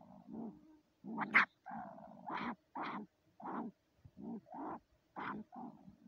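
A marten growling in short repeated bursts, roughly two a second, with one sharper, louder burst about a second and a half in.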